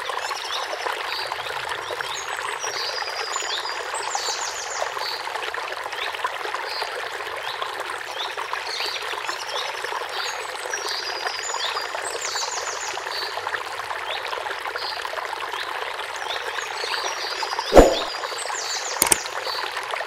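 Ambient nature sound track: a steady rush of running water with high chirps and quick trills recurring every few seconds. Near the end come a loud sharp knock and then a softer click.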